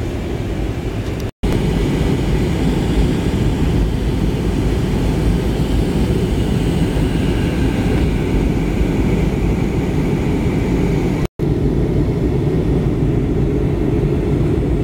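Steady low drone of an airliner's engines and rushing air, heard inside the passenger cabin in flight. It cuts out for an instant twice, about one and a half seconds in and again about eleven seconds in.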